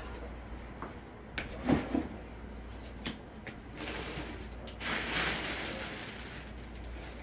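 Several knocks and clatters of household things being handled, set down or shut, the loudest about a second and a half in, then a few seconds of rustling a little past the middle.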